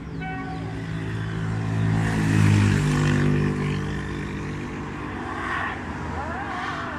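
A passing engine: a low hum that climbs in pitch and grows loudest about two and a half seconds in, then fades.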